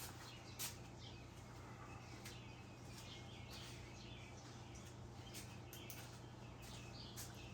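Faint birds chirping in the background over a low steady hum, with a few light clicks.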